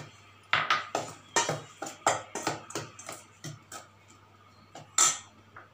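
A steel spoon scraping and clinking against a stainless-steel bowl as dry gram flour and spices are stirred together. An uneven run of quick strokes, a short pause, then a louder clink near the end.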